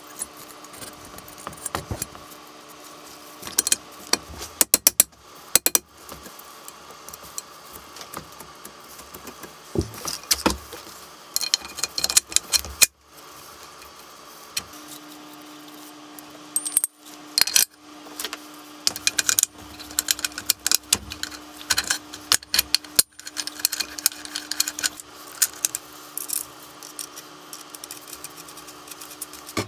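Metal parts of a bench drill's cast-iron head clinking, tapping and rattling in short irregular bursts as the spindle and chuck assembly is handled and fitted by hand. A faint steady hum runs through the middle stretch.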